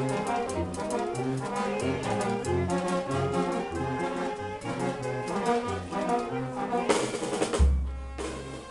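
Brass band playing a lively dance tune with a pulsing bass line. Near the end a loud low rumble on the microphone drowns the music.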